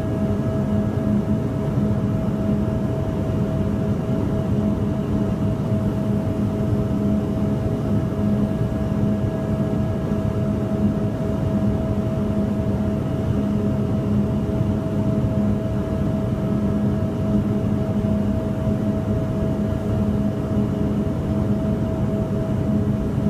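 Steady, unchanging low drone, like a machine or engine hum, holding a constant pitch throughout.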